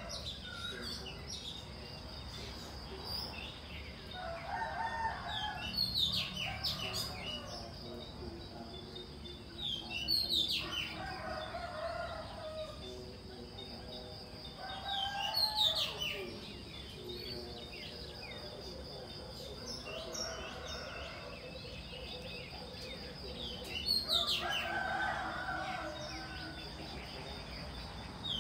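Roosters crowing, about five long crows spaced several seconds apart, with small birds chirping between them.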